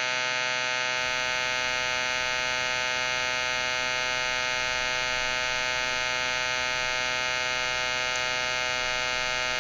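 Electric shaver running, a steady, unchanging buzz pitched around 126 Hz with many overtones, used as background noise.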